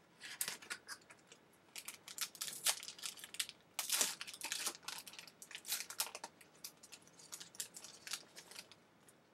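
Shiny wrapper of a baseball card pack crinkling and tearing as it is opened by hand, in irregular crackles and rustles, loudest a few seconds in.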